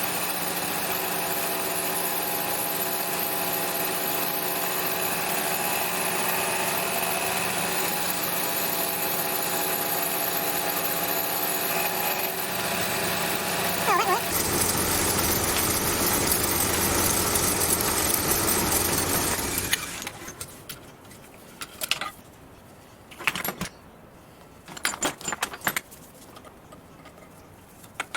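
Homemade Gingery milling machine running steadily while milling an aluminium clamp jaw. The sound gets louder and rougher about halfway through, and the machine stops about two-thirds of the way in. A few sharp clicks and knocks follow.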